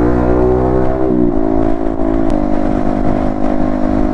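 Yamaha MT-15's single-cylinder engine running through an Akrapovic exhaust while riding, with rushing wind and road noise underneath. Its pitch climbs gently, drops about a second in, then steps again a little after two seconds and holds steady.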